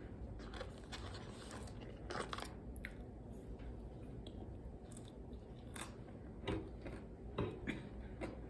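Close-up eating sounds of French fries being bitten and chewed: irregular crunchy bites and wet chewing, with a few louder crunches about two seconds in and again near the end.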